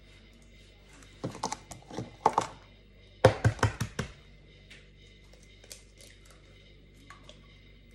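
Eggs being cracked against the rim of a stainless steel mixing bowl: quick clusters of sharp knocks and taps on shell and metal, loudest about three seconds in, then a few faint clicks of shell being pulled apart.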